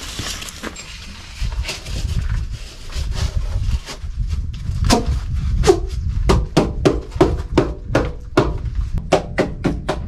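Rapid hammer strikes on wood framing. They start about halfway through and speed up to about three or four a second, each with a short ring.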